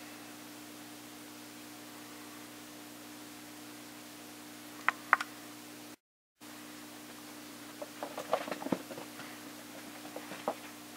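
Steady low hum, with two sharp clicks about five seconds in and a scatter of light taps and knocks from about eight seconds on; the sound drops out for a moment just after the midpoint.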